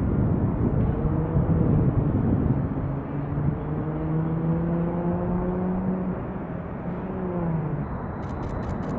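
Boeing 737 jet engines running on the runway: a steady rumble of jet noise with a low hum in it that sags slightly in pitch and fades out near the end. A few quick clicks come near the end.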